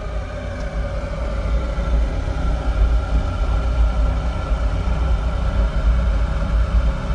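Bayco burn-off oven's afterburner gas burner firing just after start-up: a steady low rumble with a steady hum above it, growing a little louder over the first two seconds.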